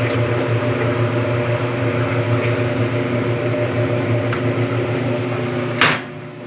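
Brastemp Automático Luxo Plus washing machine running with a steady motor hum. Near the end a sharp click, after which the running drops away.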